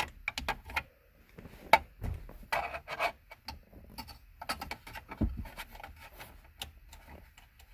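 Scattered clicks, taps and rubbing of plastic steering-column trim and screws being handled with a screwdriver, the sharpest click a little under two seconds in.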